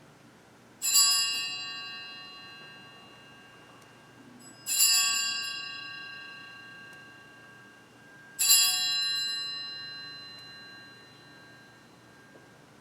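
Altar bells rung three times at the elevation of the consecrated host, each ring a bright chord of high tones that dies away slowly.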